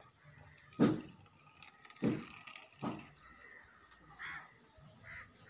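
Three sharp thumps in the first three seconds, then two short crow caws near the end.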